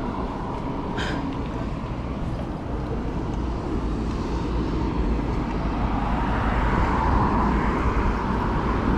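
Steady road noise from a bicycle riding along a busy road: rumble of wind on the microphone mixed with passing car traffic. A single sharp click about a second in.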